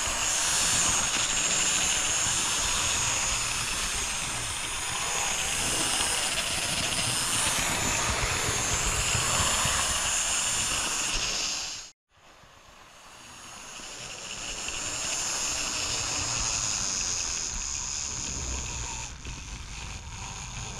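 HO-scale model steam tank locomotive running on sectional track, a steady whir and rattle from its small electric motor and wheels rolling over the rails. The sound cuts out suddenly about halfway through, then fades back up over a few seconds.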